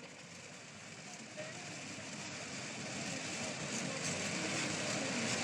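Steady rushing noise inside a car in flash-flood weather, slowly growing louder: rain and wet-road noise around the car.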